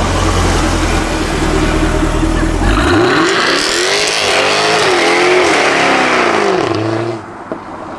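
Jaguar F-Type R's V8 engine rumbling low, then revving hard from about three seconds in, its pitch sweeping up and back down over some four seconds before dropping away near the end.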